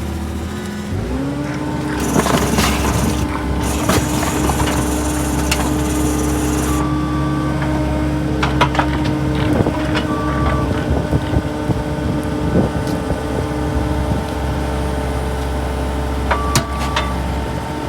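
Engine of the machine driving an earth auger revs up about a second in and then runs steadily under load, with scattered clanks and knocks as the auger works against rock at the bottom of a post hole.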